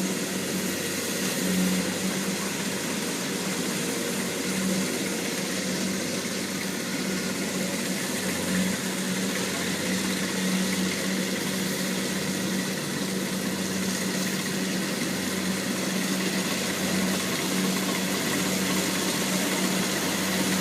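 Kubota DC70 Plus combine harvester's diesel engine running steadily: a constant low drone under an even wash of machinery noise.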